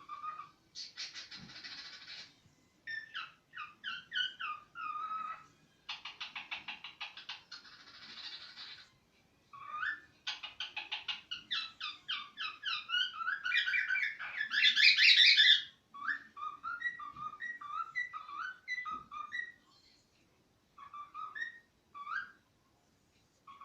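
Cockatiel singing: a string of short whistled notes mixed with raspy, buzzing chatter, loudest about two-thirds of the way through, with a brief pause near the end.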